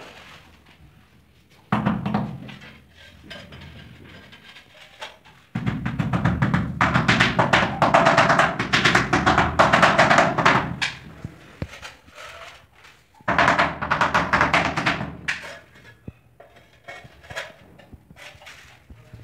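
Rubber mallet tapping a large ceramic floor tile down into its mortar bed to level and set it, in quick runs of knocks: a short run about two seconds in, a long run of about five seconds, then another of about two seconds.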